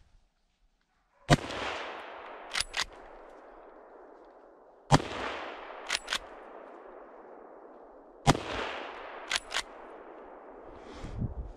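Three hunting-rifle shots about three and a half seconds apart, each with a long rolling echo. About a second after each shot come two quick metallic clicks as the rifle's action is cycled for the next round.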